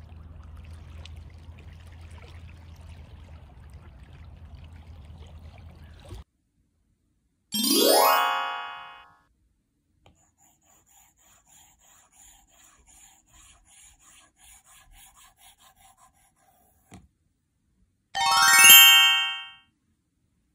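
A steady low hum with faint noise for about six seconds, then two loud rising swooping tones, one about eight seconds in and one near the end, with faint, evenly repeating high notes of light music between them.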